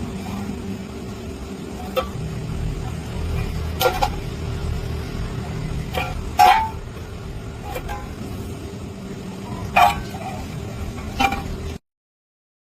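Workshop machinery running with a steady hum, with several sharp knocks and clinks over it. The sound cuts off abruptly near the end.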